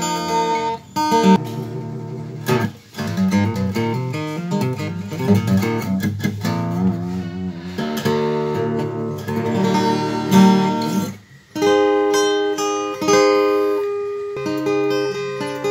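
APX-style cutaway acoustic guitar played fingerstyle: picked notes and chords with some strums, broken by a few short pauses.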